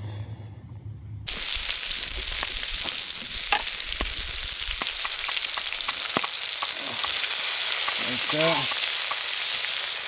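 Burgers, fried onions and buns sizzling on a griddle hung over a wood campfire, with repeated clicks and scrapes of a spatula against the griddle. The sizzle cuts in abruptly about a second in, after a quiet low hum.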